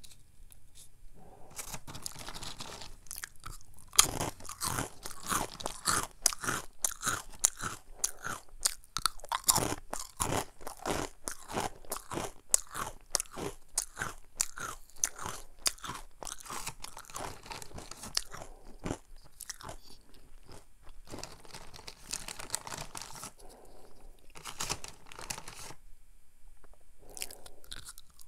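Crunchy ring-shaped Jjanggu Churros corn snack being bitten and chewed close to a clip-on microphone: a dense run of crisp crunches that starts about a second and a half in, eases off for a few seconds near the end, then picks up again.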